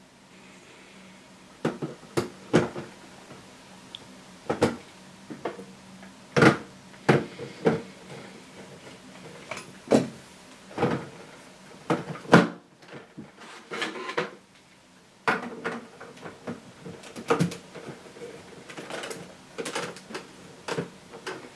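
Hard plastic LEGO parts clicking and knocking as the separate floor and roof modules of a LEGO building are handled, set down on each other and pressed together: a couple of dozen sharp, irregular clicks.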